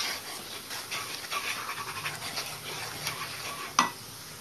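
Onion and chilli masala sizzling in hot oil in a non-stick kadhai while a spatula stirs and scrapes through it, with a sharp tap of the spatula on the pan near the end followed by just the steady sizzle.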